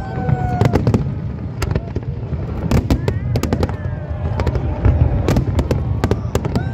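Fireworks display: many sharp bangs and crackles going off in quick irregular succession over a continuous low rumble of shell bursts.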